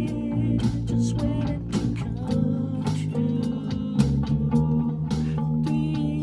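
Music: a guitar-led song with a bass line and a steady beat.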